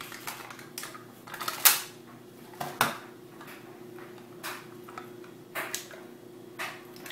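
Plastic snack-pudding cups and their cardboard sleeve crinkling and snapping in the hands as a cup is pulled from the pack and its foil lid is peeled: about ten short crackles and clicks, the loudest a little under two seconds in. A steady low hum runs underneath.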